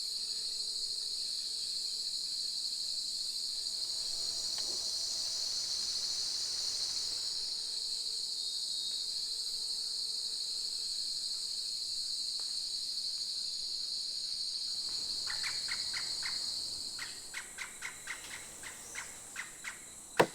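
Rainforest insect chorus: a steady, high-pitched drone that fades about 17 seconds in. A run of short clicks, about three a second, starts shortly before and carries on to the end.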